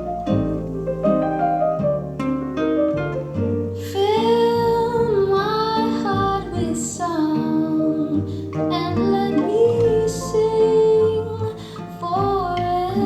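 A song played back through an Altec 612C loudspeaker fitted with a 416-8Z woofer and a 311-60 horn. Plucked notes sound first, then a singing voice with vibrato comes in about four seconds in over the accompaniment.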